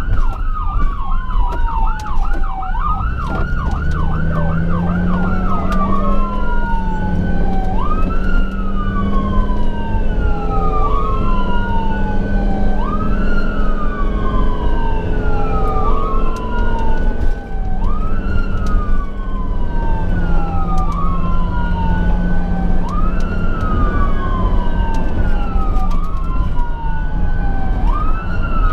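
Emergency vehicle's electronic siren. It runs a fast yelp for the first few seconds, then switches to a wail that rises quickly and falls slowly about every two and a half seconds, over engine and road noise.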